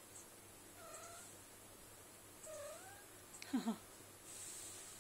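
Bengal cats calling: faint, short high mews about a second in and again past the middle, then a louder, lower two-note call about three and a half seconds in.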